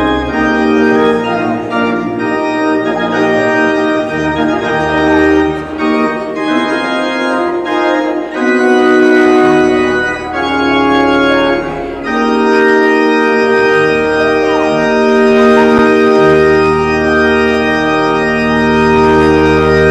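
Organ playing slow, sustained chords over held bass notes, the harmony changing every second or two.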